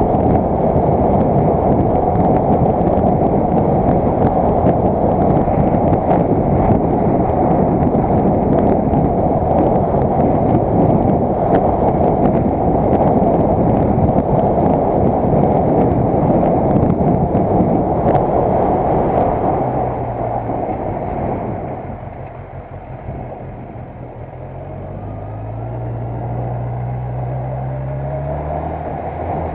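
Motorcycle on the move: heavy wind rush on the microphone over the running engine. About twenty seconds in the rush dies down as the bike slows, then the engine note rises as it speeds up again.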